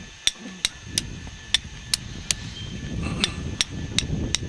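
A hammer striking metal in quick, sharp taps, about two or three a second, with a pause of nearly a second about halfway through. Low rumbling noise rises underneath.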